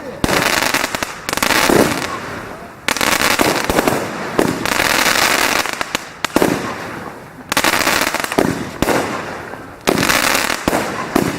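Fireworks going off: a run of sudden loud bangs about every second or two, each followed by a crackling hiss that dies away.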